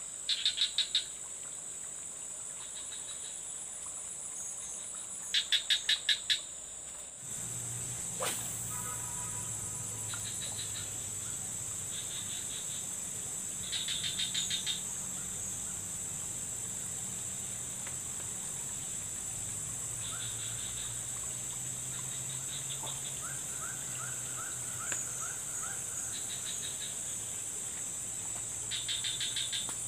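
Insects singing in a steady high buzz, with short trains of rapid chirps breaking in every few seconds, the loudest near the start and about six seconds in. A faint low hum joins from about seven seconds in.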